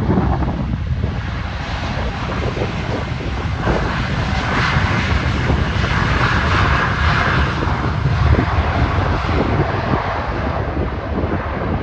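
Boeing 787 twin jet engines at takeoff thrust during the takeoff roll, a loud, steady rushing noise that swells for a few seconds in the middle as the airliner passes.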